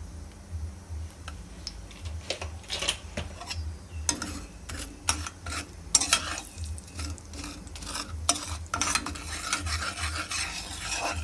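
Slotted metal spatula scraping and tapping around a metal kadhai while spices are stirred into hot ghee, with a light sizzle underneath. The strokes are irregular and come faster from about four seconds in.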